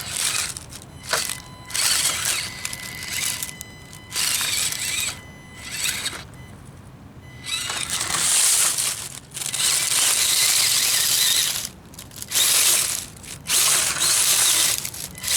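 Axial SCX24 micro crawler driving through dry leaves in repeated short runs, the leaves crackling and crunching under its tyres, stopping and starting every second or two.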